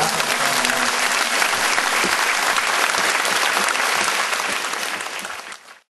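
A large crowd applauding, dense steady clapping that fades out near the end.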